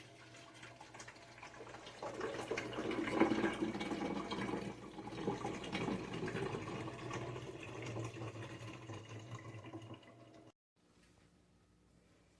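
Water rushing and splashing in a HAVA countertop dishwasher over a steady low hum. It swells about two seconds in and cuts off abruptly about two seconds before the end.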